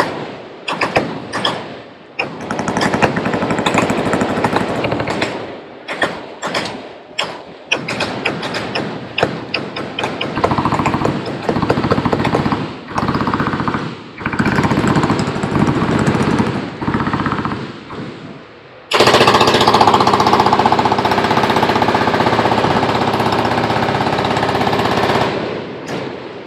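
Several machine guns firing overlapping automatic bursts along a firing line. About two-thirds of the way through, the fire jumps to a louder, unbroken stretch lasting about six seconds, then dies away.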